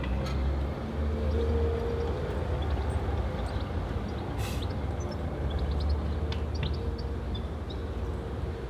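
A vehicle's steady low rumble, with a faint hum above it and scattered small ticks.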